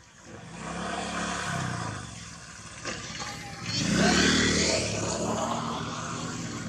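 A motor vehicle's engine running, growing louder to its loudest about four seconds in and then slowly easing off. There is a single sharp click about three seconds in.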